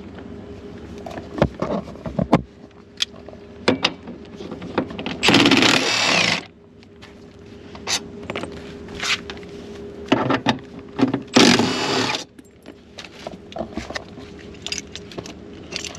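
Cordless impact wrench run in two short bursts, about five and eleven seconds in, amid scattered clinks of metal seat-belt fittings.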